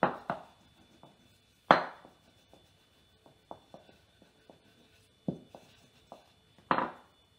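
Wooden rolling pin knocking and rolling on a stone worktop as a small disc of dough is rolled out: a string of clacks and light taps, the loudest about two seconds in and again near the end.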